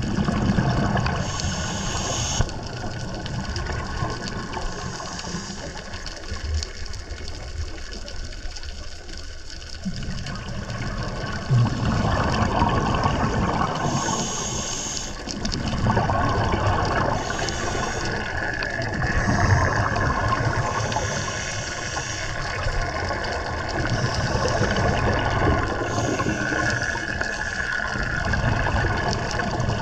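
Scuba diver's regulator breathing underwater: short hissing inhalations alternating with rushing, bubbling exhalations, repeating every few seconds.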